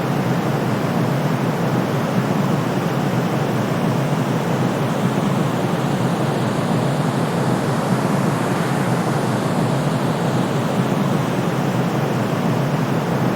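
Continuous white noise of the kind played to lull babies to sleep, even and unchanging. Its energy sits mostly in the low and middle range and thins out toward the top, so it sounds softer and deeper than a bright hiss.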